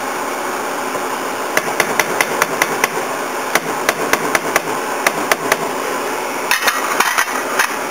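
Metal spatula clicking and knocking against a stainless frying pan in quick runs of sharp taps, about four or five a second, over the steady sizzle of ground turkey and tomato sauce cooking in the pan.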